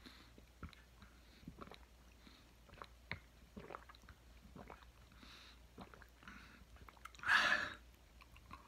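Small wet mouth clicks and lip smacks, scattered through the quiet, then one short, loud breath about seven seconds in.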